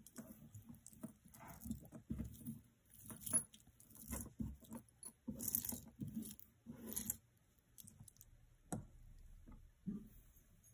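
Hands handling costume jewelry on a cloth-covered table: metal chains and beads clinking and rustling irregularly, with a couple of sharper clicks near the end.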